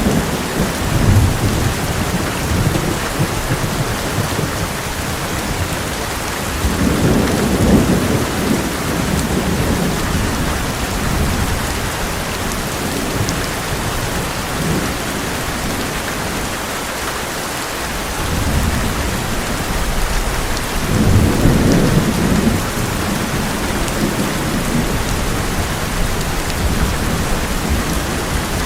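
Heavy rain falling steadily on an old metal roof, with thunder rumbling three times: right at the start, about a quarter of the way in, and again about three-quarters of the way through.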